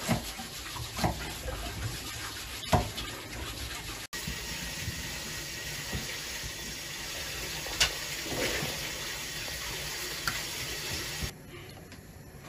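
Kitchen knife cutting vegetables and squid on a wooden cutting board, with a few separate knocks over a steady rushing noise. The rushing drops away near the end.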